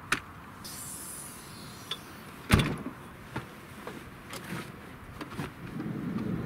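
Camping gear being handled: knocks and clatter, the loudest a sharp thud about two and a half seconds in, then rustling of a fabric stove carry bag as it is opened near the end.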